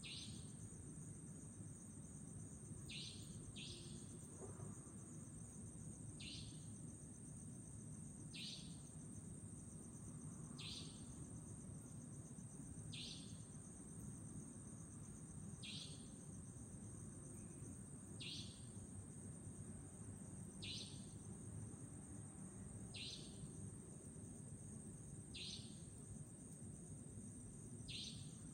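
Savanna nightjar giving its short, sharp, high-pitched call over and over, about once every two and a half seconds, once in a quick double near the start.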